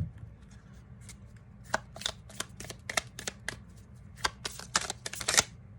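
A deck of tarot cards being shuffled by hand: a sharp tap at the start, then a run of quick card snaps and flicks that grows denser near the end.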